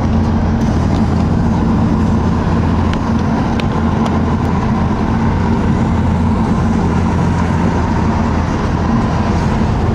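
Mitsubishi VR-4's engine and road noise heard from inside the cabin while cruising at a steady speed: an even, unchanging hum.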